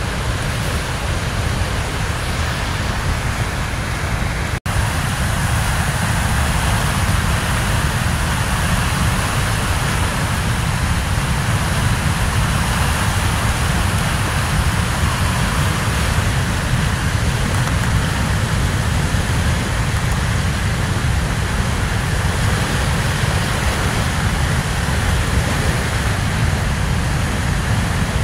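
Fast, turbulent floodwater rushing and churning white, a loud steady rush of water. The sound cuts out for an instant about four and a half seconds in.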